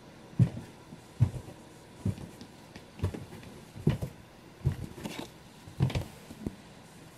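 Slow, evenly spaced footsteps thudding on the floor, about one step a second.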